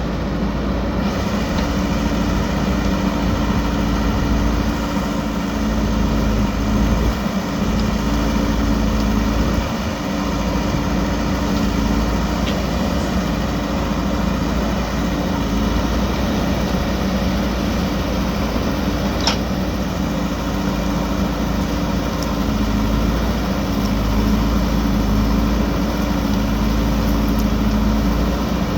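JCB backhoe loader's diesel engine running steadily under work, with a single sharp click about two-thirds of the way through.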